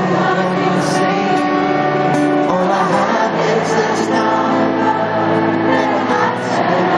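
Live band performing a ballad, with a man singing the lead into a handheld microphone over guitar and keyboard accompaniment.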